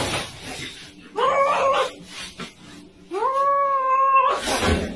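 Cats yowling at each other in a standoff: two drawn-out cries, the second held steady for about a second, with short hissy noise bursts at the start and near the end.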